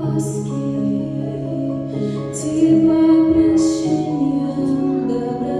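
Music: a female voice sings long held notes over instrumental accompaniment.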